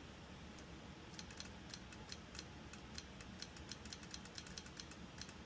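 Faint, rapid, irregular light clicking, about four to six clicks a second, starting about half a second in.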